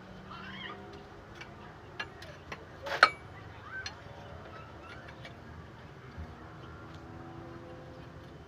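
Hand tools clinking on metal during truck repair work: scattered light clicks, with a loud ringing metallic clank about three seconds in and another sharp clank at the end.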